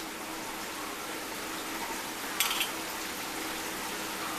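Steady sizzling hiss of cooking oil frying in a pan, with a short scrape or clink about two and a half seconds in.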